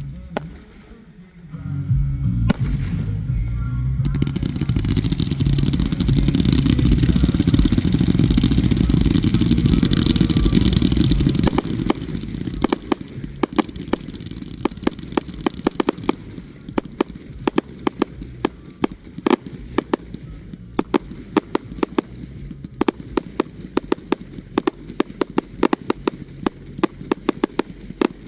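Fireworks display: a loud, dense stretch of rumbling bursts lasts about eight seconds, then gives way to rapid crackling pops, several a second, that keep on.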